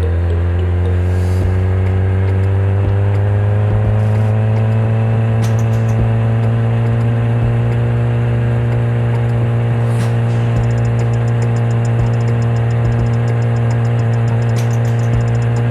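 Kawasaki ZX-10R's inline-four engine running under steady throttle, its pitch rising slowly over the first few seconds and then holding level.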